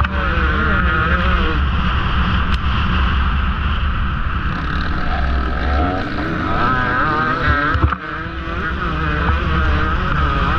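KTM XC-W 150 two-stroke dirt bike engine under hard throttle, its revs rising and falling as it pulls through the gears, with a brief drop in revs about eight seconds in. Heard from the rider's helmet, with a heavy low rumble of wind on the microphone.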